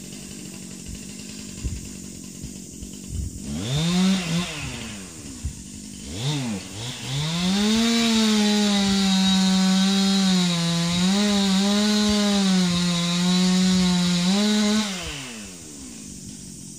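Two-stroke chainsaw idling, revved briefly twice, then held at full throttle for about seven seconds, its pitch dipping a few times as it cuts into a tree trunk, before dropping back to idle near the end.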